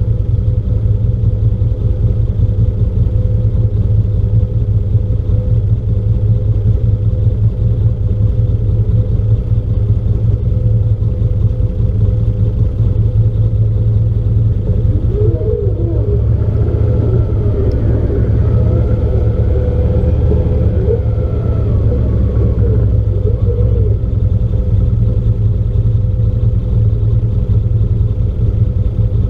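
Off-road vehicle engine running steadily at low trail speed, a constant low drone. A faint wavering higher sound joins for several seconds in the middle.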